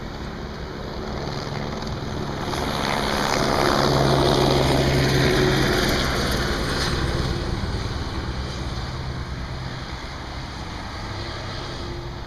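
Police helicopter flying low overhead, its rotor and engine noise swelling to a peak about four seconds in and then slowly fading as it passes.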